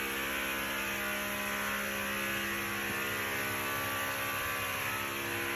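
Steady mechanical hum with several unchanging tones over an even hiss, from machinery running for construction work outside the house.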